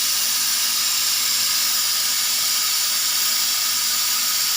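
CNC laser cutting machine running while it cuts 3 mm melamine plywood, giving a steady, even hiss.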